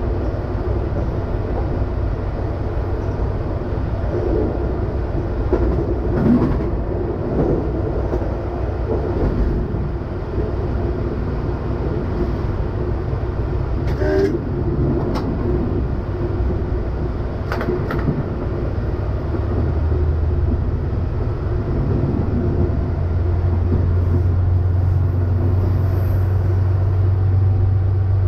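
Silver Fern diesel railcar under way, heard from the driver's cab: a steady engine drone mixed with wheel-on-rail noise and a few sharp clicks. The low engine note grows stronger and slightly louder about two-thirds of the way through.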